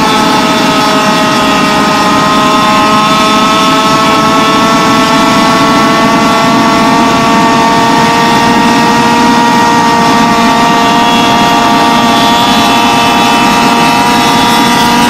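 Gas Go-Ped scooter's small two-stroke engine running at high, nearly steady revs under way, its pitch creeping up slightly over the first several seconds and then holding.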